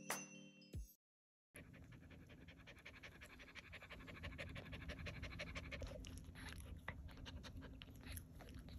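Norfolk terrier mother panting fast and steadily just after whelping. The panting starts about a second and a half in and is fairly faint.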